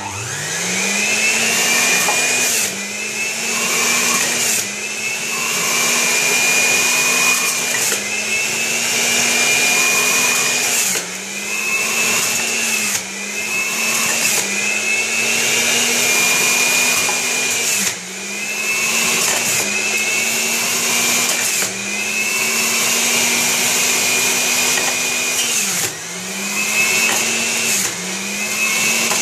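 Philips HR1832/00 400 W centrifugal juicer's motor spinning up at the start, then running with a whirring hum. Its pitch sags and recovers every few seconds as apple pieces are pushed down the feed tube into the spinning grater, loading the motor.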